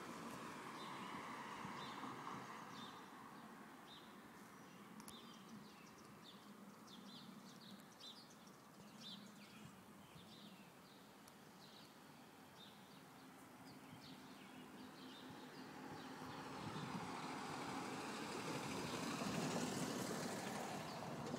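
A car passing on the road, its tyre noise fading away, then many small birds chirping, until another car approaches and goes by near the end, the loudest sound.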